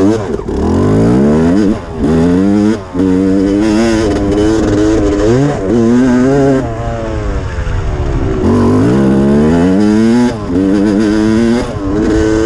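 Yamaha YZ250 dirt bike engine under the rider, revving up and easing off again and again as the throttle is opened and closed, its pitch climbing and falling. It drops out briefly about two and three seconds in.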